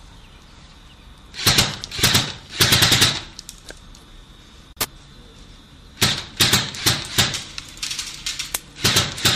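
Several short bursts of rapid automatic gunfire, each a quick string of shots. Two bursts come in the first three seconds, a single shot near the middle, and more bursts follow from about six seconds on.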